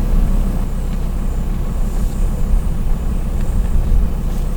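A vehicle's engine running with a steady low rumble, heard from inside the car.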